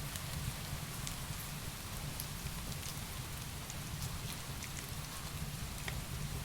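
Heavy rain falling steadily, mixed with the scattered sharp pops and crackles of burning firewood.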